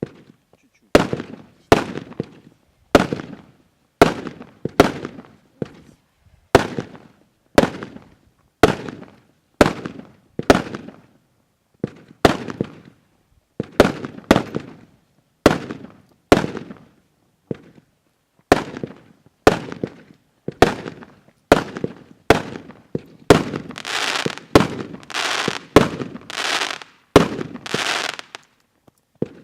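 A 53-shot consumer fireworks cake with 20–30 mm shells firing shot after shot, about one sharp bang a second, each with a fading tail. From about 23 seconds in the shots come closer together, and their tails grow longer and crackle.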